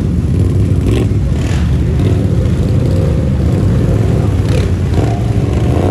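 ATV engine running steadily under throttle as the quad pushes through a shallow creek, with water splashing up from the tires in brief bursts.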